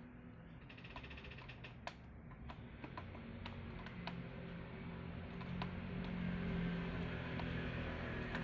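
Irregular light clicks and taps, with a short burst of rapid ticking about a second in, over a steady low hum that grows louder toward the end.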